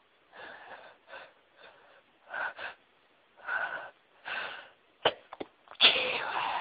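A woman's sneeze build-up from a tickling nose: about six gasping, catching in-breaths over five seconds, two sharp short catches, then a loud sneeze near the end, the loudest sound.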